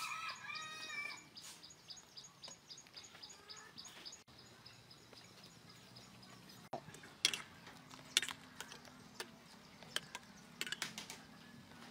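Small birds chirping steadily in the background during the first few seconds. In the second half come several sharp metallic clinks, a wire strainer knocking against a cooking pot.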